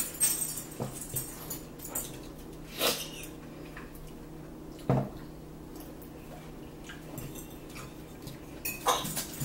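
Metal fork clinking and scraping against a ceramic bowl of spinach salad, with close-up chewing. There are scattered clicks, the sharpest about three and five seconds in, and a flurry near the end.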